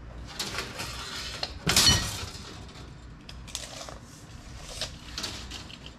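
Stainless steel brake line being handled and dragged across a steel workbench: scattered scrapes and rubs, with one sharp metallic clank that rings briefly about two seconds in.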